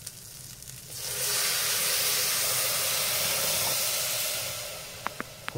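Water poured from a jug into a hot aluminium pressure cooker of fried bacon and black-eyed peas, hissing and steaming as it hits the hot fat and metal. The hiss starts about a second in and dies away near the end, followed by two light clicks.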